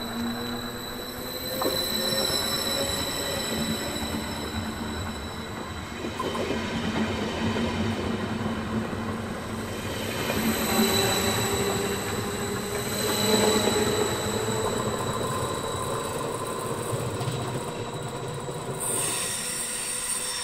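Double-deck Intercity train passing at close range and rolling away around a curve: a continuous rumble of wheels on rail with a steady high-pitched whine over it.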